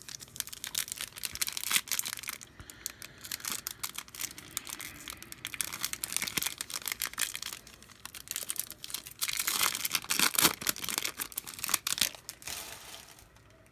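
Foil trading-card pack wrapper crinkling and being torn open, with the cards inside rustling and crackling irregularly as they are handled. The crinkling is heaviest in a few spells and dies away near the end.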